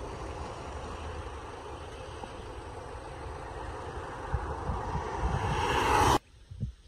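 Roadside traffic noise: the rush of passing vehicles on a highway over an uneven low rumble, swelling louder over the last two seconds as a vehicle closes in, then cutting off abruptly.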